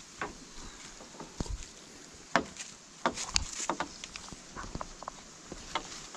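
Scattered light clicks and knocks, the loudest about two and a half seconds in and a quick run of them a little after three seconds, over a faint outdoor background.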